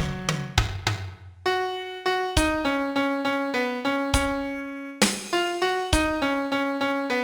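Piano playing a slow song melody one note at a time over low bass notes, in six-eight time.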